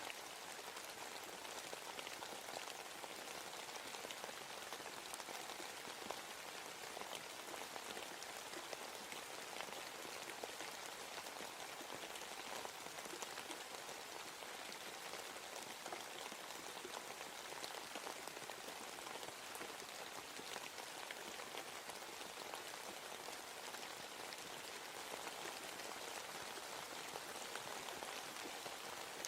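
Steady rain falling in a forest, a continuous hiss of drops with many small individual drop ticks pattering on leaves and surfaces.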